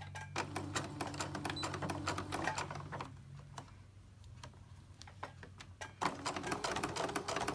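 Electric domestic sewing machine stitching through layered cotton and batting: a fast run of needle clicks over the motor hum, a pause of a couple of seconds partway through, then stitching again.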